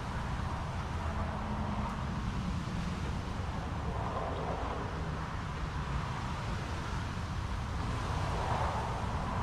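Chevrolet LT1 6.2 L V8 idling steadily during its first heat cycle after a rebuild, with the cooling system freshly filled with water.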